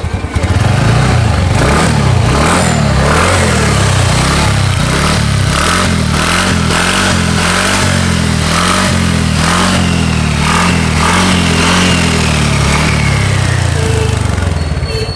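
TVS NTORQ 125 scooter's 124.79 cc four-stroke, single-cylinder, air-cooled engine, heard through its exhaust while the throttle is blipped again and again, the revs rising and falling about once a second through the middle.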